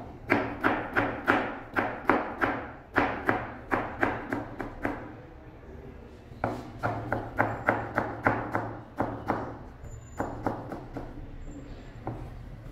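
Kitchen knife chopping a white vegetable into julienne strips on a plastic cutting board. Quick, even knife strikes come about four or five a second, in runs with short pauses between, and thin out to a few slower strikes near the end.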